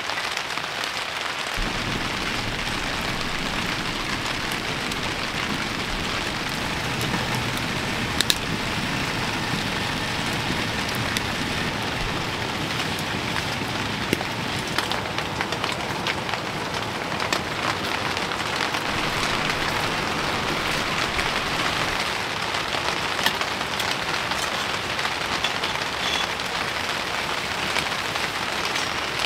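Steady, heavy rain falling on a tent, with a few sharp ticks scattered through it.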